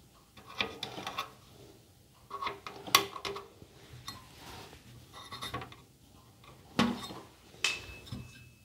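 A circuit board carrying aluminium heatsinks being set down, shifted and held on a sheet-metal UPS case while its mounting holes are marked: irregular light knocks, clinks and scrapes, the sharpest about three seconds in and again near seven seconds.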